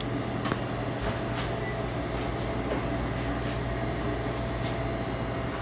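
Steady low mechanical hum of running equipment, with a few faint light clicks spread through it.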